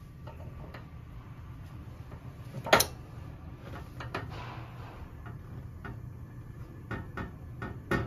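Light clicks and knocks as the burners of a Suburban two-burner propane RV cooktop are lit by hand with a lighter, with one sharp clack about three seconds in, over a low steady hum. A brief soft rush follows about a second later.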